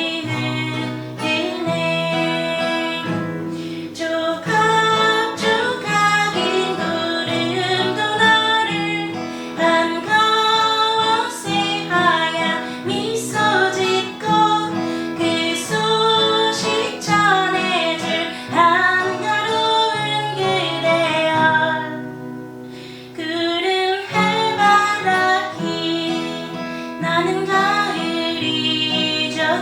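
A song: acoustic guitar playing under a singing voice, with a short lull about three-quarters of the way through.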